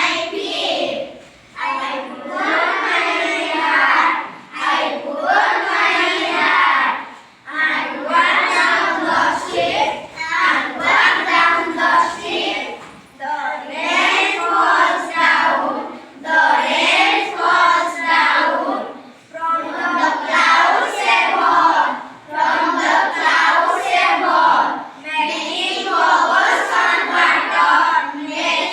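Children's voices singing a rhyme in short phrases, with brief pauses between lines.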